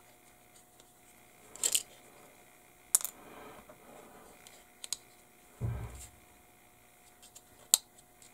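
Handling noises of a plastic model kit at the workbench: a handful of sharp clicks and taps as hard plastic parts and tools are handled and set down, with one dull thump a little past halfway.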